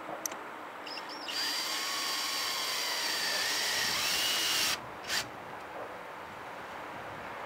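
Cordless drill driving a lag bolt through a metal railing bracket into a PVC-sleeved wood post: a quick trigger tap, then the motor whines steadily for about three and a half seconds, stops abruptly, and gives one short final burst.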